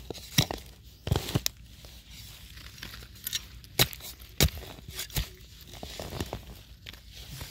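Dry forest leaf litter crackling and rustling, with a dozen or so sharp, irregular snaps.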